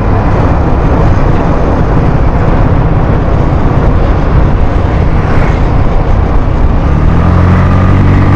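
Suzuki Skydrive scooter's engine working hard under throttle on a steep uphill climb, with heavy wind noise over the microphone. The engine note turns steadier and clearer near the end.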